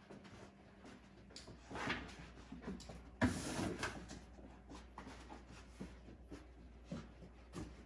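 A retriever puppy searching among cardboard boxes on carpet: soft scattered taps and rustles, with a sudden louder thump a little after three seconds in.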